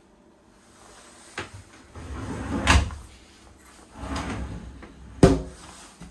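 Curved glass sliding doors of a quadrant shower enclosure being slid along their rollers: a small click, then two rolling runs about two and four seconds in, the first ending in a knock, and a sharp clack about five seconds in.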